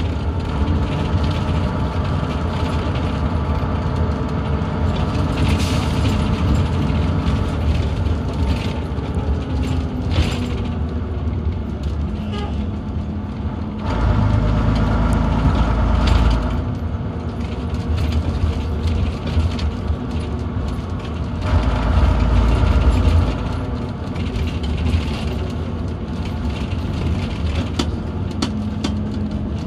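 Leyland Atlantean double-deck bus's diesel engine running as the bus drives, heard from inside the passenger saloon, with clicks and rattles from the body and fittings. The engine note grows louder and deeper twice, about halfway through and again about two-thirds through.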